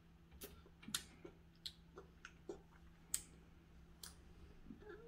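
Faint, irregular mouth and lip smacks of a toddler eating cake off her fingers and licking them: a run of short clicks, about two a second, that stops about a second before the end.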